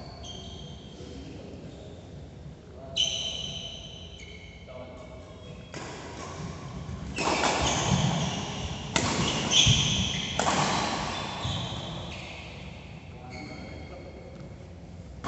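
Badminton rally: racket hits on the shuttlecock, with a sharp hit about 3 s in, and high squeaks of shoes on the court mat, mixed with players' voices. The play is busiest from about 7 to 11 s and eases off near the end.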